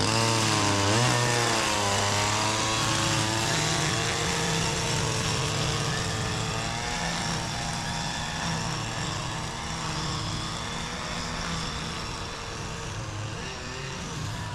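Petrol engine running, its pitch swinging up and down over the first few seconds, then settling into a steady drone that slowly grows quieter.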